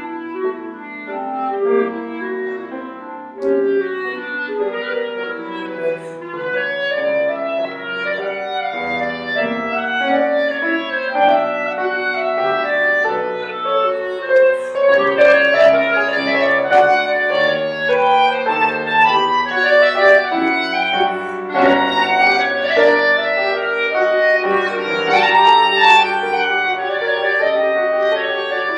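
Clarinet and grand piano playing a contemporary classical duo piece. The music grows louder about halfway through, with sharp accented piano chords.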